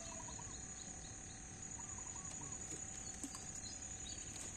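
Faint bird calls: two short runs of three or four quick notes, one at the start and one about two seconds in.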